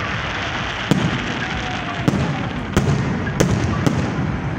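Aerial fireworks bursting: about five sharp bangs, irregularly spaced roughly a second apart, over a steady wash of noise.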